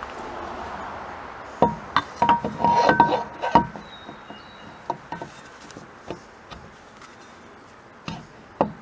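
Clinks and knocks of hand-handled metal parts and tools, a quick run of them with brief metallic ringing, then a few scattered clicks.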